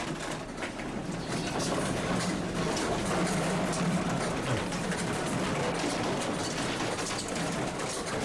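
Office fittings, shelves and monitors rattling and clattering continuously as the building shakes in a strong earthquake, with a low rumble underneath.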